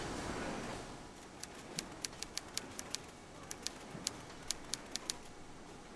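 Typewriter keys clacking as a sound effect: about fifteen sharp, uneven key strikes, starting about a second and a half in and stopping about a second before the end, played faintly.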